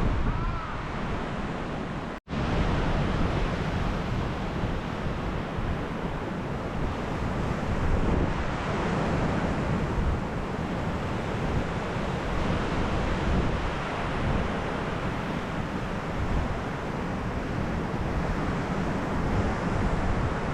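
Strong gusting wind buffeting the microphone, with surf on the shore underneath. The sound cuts out for a split second about two seconds in.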